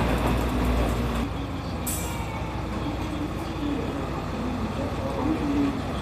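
Heavy diesel bus running, its low engine rumble dropping off about a second in, followed by a short hiss of compressed air from the air brakes.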